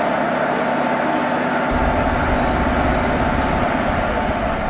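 Train noise at a station platform: a steady rumble and hum, with a deeper low rumble coming in about a second and a half in.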